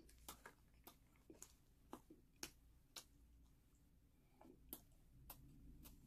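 Faint close-up eating sounds: about a dozen soft, irregular crisp clicks and crackles of chewing.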